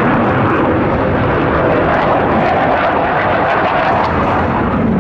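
Blue Angels F/A-18 Hornet jets making a loud, steady jet roar as they fly past overhead, with a faint pitch that drifts within the roar.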